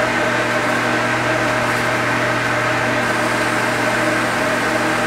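Large exhaust fan of a tornado chamber running steadily: a continuous rush of air with a constant hum underneath.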